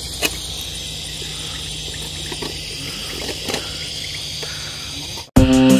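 Steady outdoor ambience: a continuous hiss with a faint low hum and a couple of faint clicks. Near the end it cuts off suddenly and much louder guitar music comes in.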